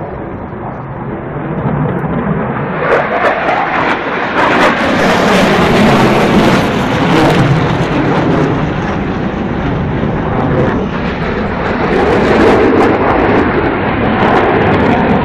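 Fighter jet flying overhead: a loud, rushing engine roar that swells about two seconds in and holds, with some crackle.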